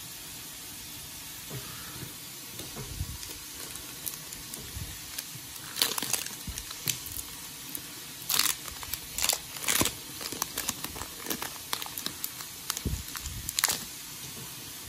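Foil booster pack wrapper crinkling and being torn open, in bursts of crackling that start about six seconds in and stop shortly before the end.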